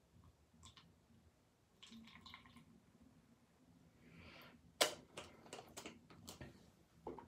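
Small glass oil vial and its cap being handled and screwed shut: a few faint clicks, a brief soft swish a little after four seconds, then a run of light clicks and taps.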